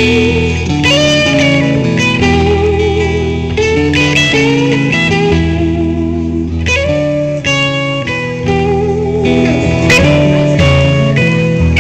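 Blues-style electric guitar solo: single-note lines with string bends and wavering, vibrato-held notes over a steady chordal accompaniment.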